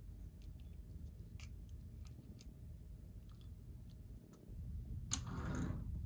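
Small clicks and taps of hands handling a toy and its packaging, then a sharp snap about five seconds in followed by a brief rustling swish.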